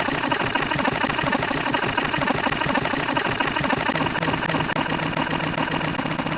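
A steady, rapid rattling noise like a running engine.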